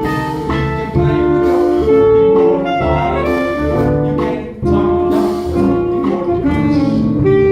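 Jazzy instrumental break in a musical-theatre song, with saxophone and brass carrying the tune over a band.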